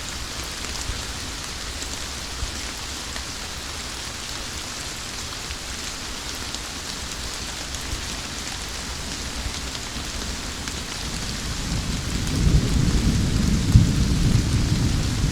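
Steady summer rain falling, with a low rumble of thunder building in about eleven seconds in and growing loud near the end.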